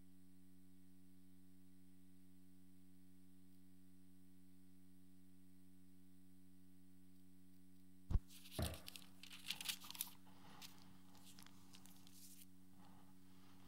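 Steady electrical hum from the church's sound system. About eight seconds in, a sharp click and knock at the ambo microphone, then a couple of seconds of rustling and handling noises, after which the hum continues thinner.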